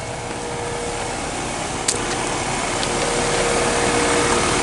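Outdoor unit of a 2020 Heil N4H4 1.5-ton heat pump starting up in heat mode: a steady rush of fan air that grows gradually louder, with a steady hum setting in near the end and a single tick about two seconds in.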